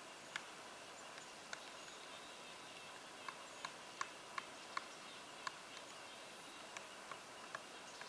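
Pileated woodpecker chiselling into a tree trunk to dig out a hole: about a dozen sharp single knocks at uneven spacing, not a drum roll, most crowded in the middle, over a steady faint hiss.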